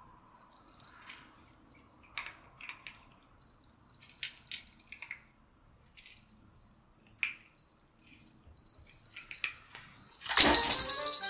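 Plastic beads on a cat fishing-rod toy clicking and rattling faintly in scattered short bursts as a cat bites and paws at it. About ten seconds in comes a much louder clattering jangle.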